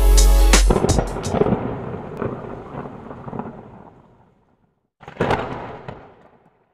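Intro music ending on a deep bass hit, then a thunder-like rumbling sound effect that dies away over about four seconds. After a brief silence, a second, shorter rumbling burst comes about five seconds in and fades the same way: a logo-reveal sound effect.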